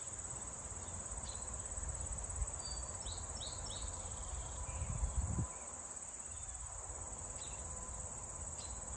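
Steady high-pitched insect chorus, crickets or similar, running without a break. Three short high chirps come a little after three seconds, and a brief low rumble comes around five seconds in.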